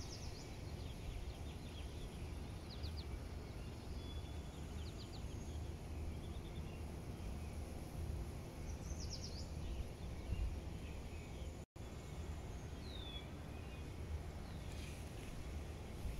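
Small birds chirping on and off, in short rapid trills and a few downward-slurred single notes, over a steady low outdoor rumble. The sound cuts out for an instant about three quarters of the way through.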